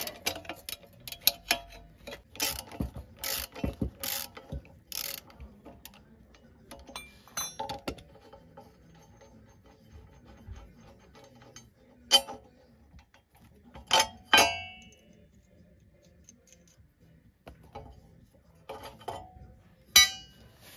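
Hand tools and loose steel suspension parts clicking and clinking as an 18 mm bolt is undone from a removed rear suspension bushing bracket: a quick irregular run of clicks in the first five seconds, then scattered clinks, one ringing metallic clink midway, and a few more clinks near the end as the part is set down.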